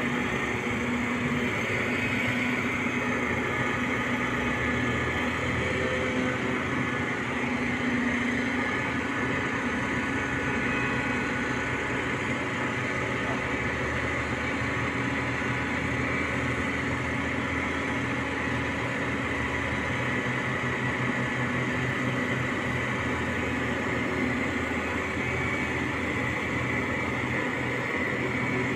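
Truck-mounted mobile crane's diesel engine running steadily at an even pitch and level.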